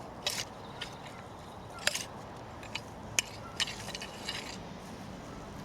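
Scattered sharp clicks and knocks from digging potatoes by hand: soil, stones and tubers being handled and dropped, with a faint scrape or two.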